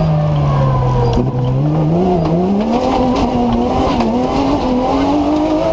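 BMW M3 engine in a TMC off-road racing car, heard from inside the car. The engine note falls for about a second and a half, then climbs again with a short dip about two seconds in, and holds high, slowly rising, as the car drives on.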